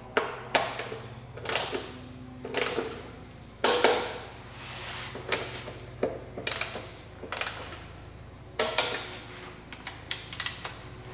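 Hand ratchet clicking in short bursts, about ten times, as the small bolts of a plastic timing belt cover are run in and snugged, with a few knocks of the tool against the cover.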